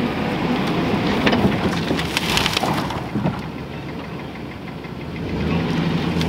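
Chevrolet GMT400 pickup's engine running as it reverses, with a stretch of clattering and scraping about one to three seconds in as it brakes hard and its load of old plywood and boards slides back off the tailgate onto a brush pile. The engine goes quieter afterwards and runs louder again near the end.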